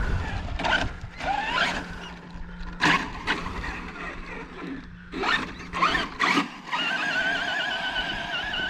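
Electric motor of a radio-controlled car whining in short throttle bursts with rising pitch, then settling into a steady, slightly wavering high whine for the last couple of seconds.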